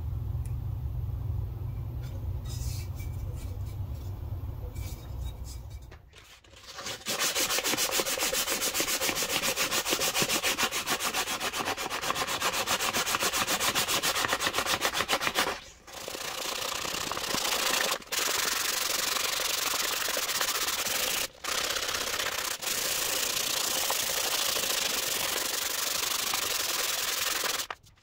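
Sandpaper rubbing back and forth on a wooden tool handle in rapid, even strokes, starting about six seconds in and broken by a few brief cuts. Before the sanding there is a low rumble.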